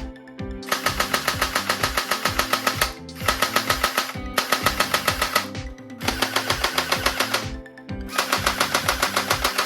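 Background music with a fast, driving beat of about eight pulses a second over stepping bass notes; the upper layer drops out briefly three times.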